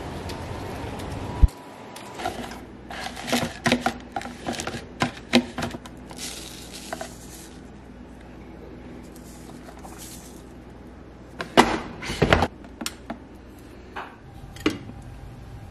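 Clicks, knocks and clatter of a drip coffee maker being set up: a plastic scoop and lid handled over the paper filter, with the loudest cluster of knocks about twelve seconds in and a few light clicks near the end as the machine's buttons are pressed.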